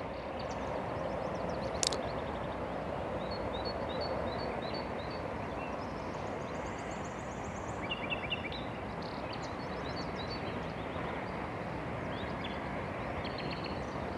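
Small birds chirping in short, quickly repeated phrases over a steady background rush of outdoor noise, with a single sharp click about two seconds in.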